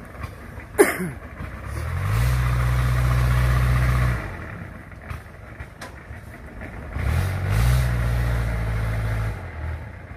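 Yanmar 82 rice combine harvester's diesel engine revving up twice, each time holding for about two seconds before dropping back, as the machine climbs off a boat up steep plank ramps. A short sharp sound about a second in.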